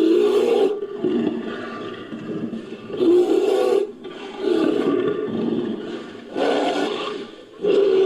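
Made-up monster roar sound effect, pieced together from cave bear and bunyip recordings: a run of raspy roars, one every second or two.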